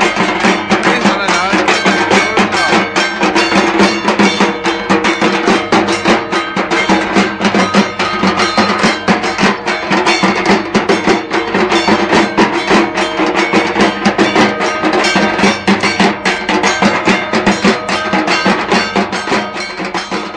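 Background music with a fast, dense percussion beat, starting to fade out near the end.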